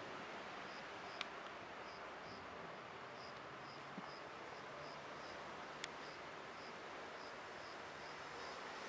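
A cricket chirping, short high chirps repeating evenly about three times a second, faint over a low steady hiss and hum. Three sharp clicks come through, at about one, four and six seconds in.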